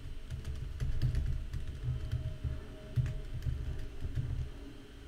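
Typing on a computer keyboard: a quick, irregular run of key clicks as a command is typed out.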